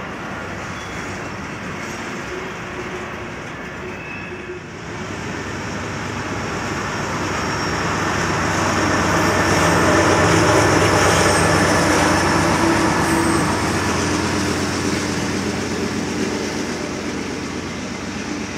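Freight train cars rolling past, their steel wheels running on the rails in a continuous rumble that grows louder from about five seconds in and then eases off.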